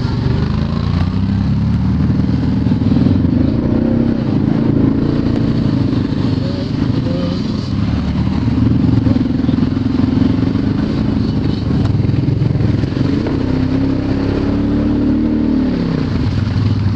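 Side-by-side off-road vehicle engine running under changing throttle on a rough dirt trail, its pitch rising and falling.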